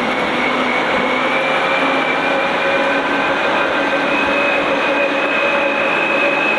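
Loaded Caterpillar 730 articulated dump truck driving past on a dirt track: steady diesel engine and drivetrain noise with a high whine that rises slightly.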